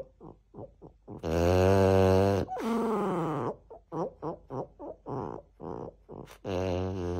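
French bulldog snoring in its sleep: a string of short snuffling breaths broken by long, low, drawn-out snores about a second in and again near the end.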